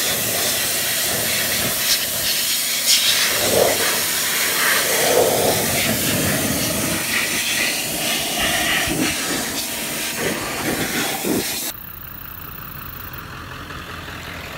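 The 7.3-litre Powerstroke V8 turbo diesel of a 1997 Ford F-350 idling, heard close up under the hood, with a strong hiss over the engine sound. Near the end the sound drops suddenly to a quieter level.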